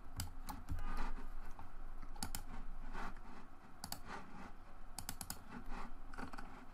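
Computer keyboard typing: irregular keystrokes and clicks, some in quick runs.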